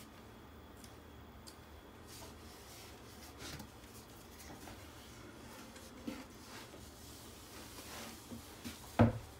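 Faint rubbing and small taps as string line is pulled off a spool and stretched across a plywood subfloor, then one sharp knock about nine seconds in.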